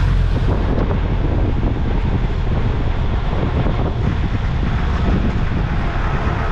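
Wind buffeting the microphone over the steady low rumble of a moving vehicle.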